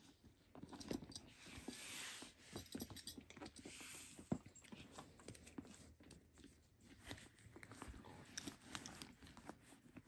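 Leather handbag strap with a metal buckle being handled and attached to the bag: faint rustling with scattered light clicks, the sharpest about four seconds in.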